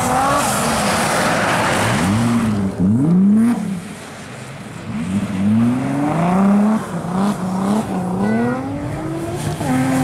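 Rally car engine revving hard on an ice track, its pitch climbing and dropping again and again through gear changes as the car drifts through corners. A hiss of tyres throwing snow in the first couple of seconds; the engine fades about four seconds in, then rises again.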